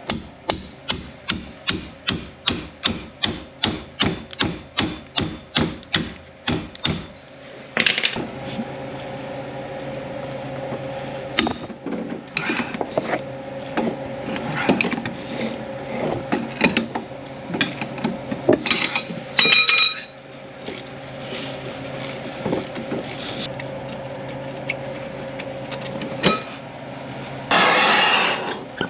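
Hand ratchet wrench clicking rapidly and evenly, about three clicks a second, as a bolt is turned, for roughly the first seven seconds. Then comes irregular clinking and knocking of metal tools and parts, with a loud burst of scraping noise near the end.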